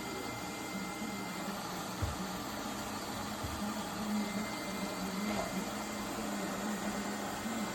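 Lefant M210 Pro robot vacuum running: a steady whirr from its suction fan with a wavering low hum and a faint high whine, and two soft low knocks about two and three and a half seconds in.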